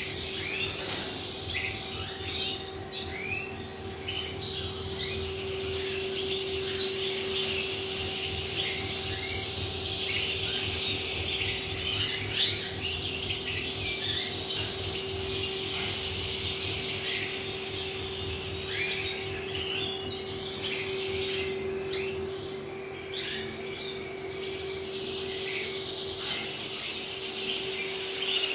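Domestic canary singing a long, continuous song of quick chirps, trills and rising and falling whistles, over a steady low electrical hum.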